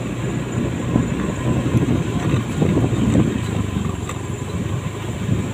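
Motorcycle riding over a rough, potholed dirt road: a steady engine hum under an uneven rumble and rattle as the bike jolts over the ruts, with a couple of sharp knocks.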